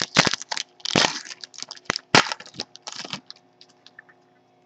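Baseball card pack wrapper crinkling and being torn open, in quick crackling rustles with a sharp crack about two seconds in; it stops a little after three seconds.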